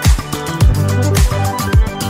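Background music with a steady kick-drum beat, about two beats a second, over a heavy bassline.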